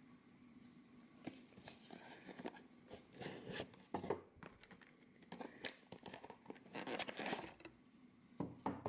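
Faint, scattered rustling and crinkling of a small toy box's cardboard and plastic packaging being handled and opened.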